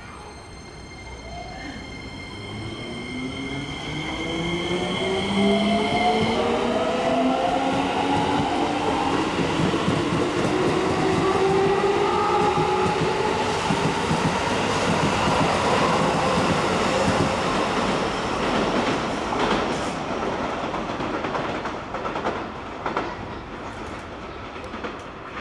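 Keikyu New 1000 series electric train pulling away, its Toyo IGBT-VVVF inverter and Mitsubishi traction motors whining in several tones that rise steadily in pitch as it speeds up. Steady high inverter tones sound over the start and stop about six seconds in. This unit's motor noise is unusually loud for the class. Near the end come clicks of wheels over rail joints.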